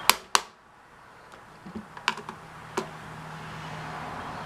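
Sharp plastic clicks and light knocks from handling an old Radio Shack Micronta variable DC power supply: two loud clicks at the start, then a few lighter clicks and taps about two seconds in.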